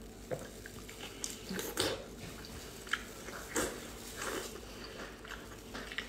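Close-up eating sounds of a person chewing and sucking on cooked octopus tentacles: short, irregular wet slurps and smacks, a few seconds apart.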